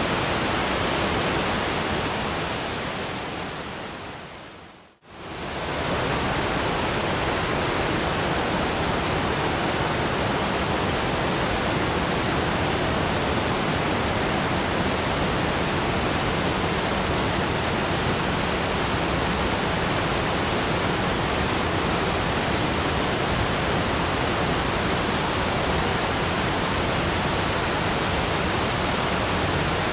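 Steady rushing waterfall brown noise. About two seconds in it fades slowly down to silence, then within a second swells back up and holds steady.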